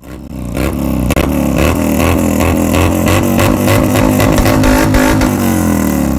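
Dirt bike engine revving hard: the pitch climbs in the first second, holds high and steady, then drops off near the end.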